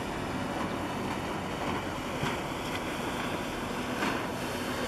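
Small motorboat running past on the water, with steady wind on the microphone and small waves lapping at the shore.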